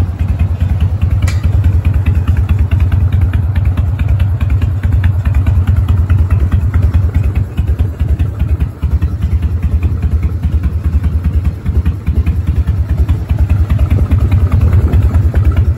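Harley-Davidson FXSTB Night Train's Evolution V-twin running steadily at idle through an aftermarket Sundance exhaust, with an uneven pulsing beat. A sharp click about a second in.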